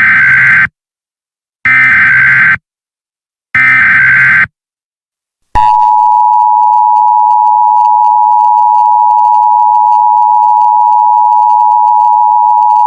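Emergency Alert System tones: three roughly one-second bursts of screechy warbling SAME header data with short gaps between them, then, about five and a half seconds in, the steady two-tone EAS attention signal starts and holds. Together they open an emergency alert, here a tornado watch.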